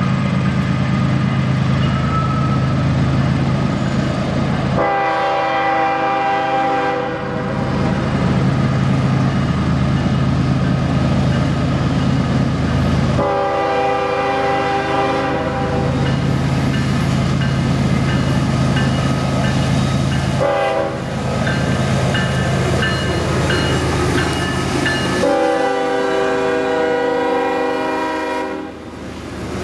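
Diesel freight locomotive passing, its engine running with a steady drone under an air horn sounding long, long, short, long: the standard signal for a grade crossing. Near the end the engine sound drops away as the hopper cars roll by.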